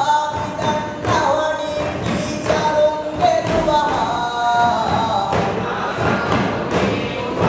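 Traditional chant sung by a group of young male voices, with a lead singer on a microphone. A steady beat of large hand-struck frame drums plays under the singing.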